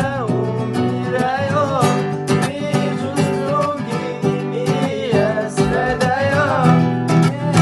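Music: a song led by acoustic guitar, with a melodic line that bends up and down in pitch over a steady plucked accompaniment.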